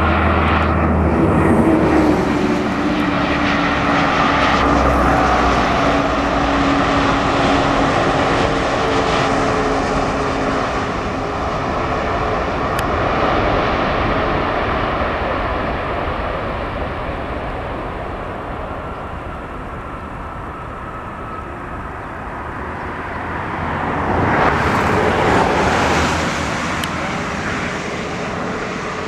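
Boeing 787-8 Dreamliner's Rolls-Royce Trent 1000 turbofans during landing and rollout: continuous jet engine noise with whining tones that fall in pitch over the first several seconds as the aircraft passes. The noise fades in the middle, then swells again briefly near the end.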